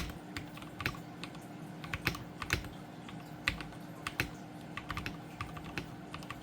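Typing on an Epomaker Aura 75 mechanical keyboard fitted with Gateron Milky Yellow Pro V2 linear switches and tape-modded: an irregular, steady run of keystroke clacks at ordinary typing speed.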